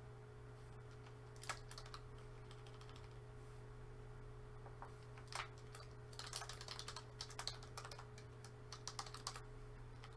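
Typing on a computer keyboard: a few single keystrokes, then short runs of faint clicks in the second half, over a steady low hum.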